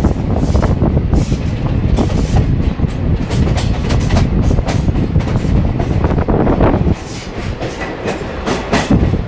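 A moving vehicle rumbling loudly, with rapid irregular clatter all through and a slight drop in level about seven seconds in.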